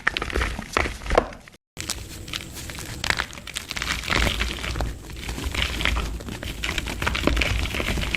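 Dry mud and dirt being crushed and crumbled in a plastic pot: dense crunching and crackling, with the sound cutting out completely for a moment about one and a half seconds in.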